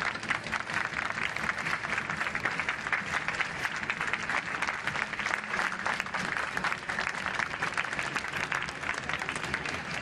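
Audience in a large arena applauding steadily: dense, continuous clapping from many hands.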